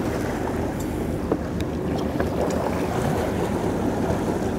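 A boat engine running steadily, with water washing and splashing against the hull as a hooked marlin thrashes at the side of the boat.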